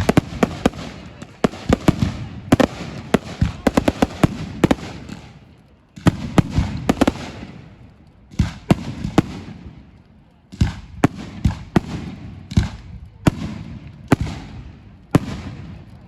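A fireworks display: volleys of sharp bangs and crackles, some in quick clusters, over a low rumble, with two short lulls partway through.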